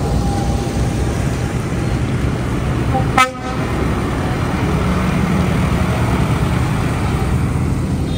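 Farm tractors' diesel engines rumbling steadily as they drive past one after another, with one short horn toot a little over three seconds in.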